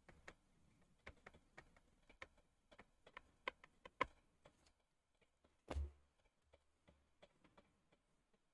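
Faint, irregular clicks and taps of a stylus pen on a tablet screen while writing by hand, with one louder dull knock a little under six seconds in.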